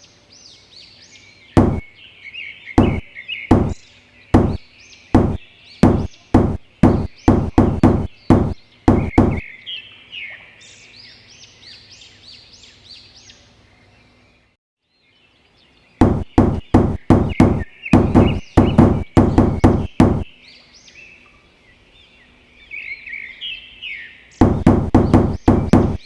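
Runs of sharp knocks that speed up, from about 1.5 to 9 s, again from 16 to 20 s, and fast again near the end, with birds chirping between them. There is a brief silent break just before the second run.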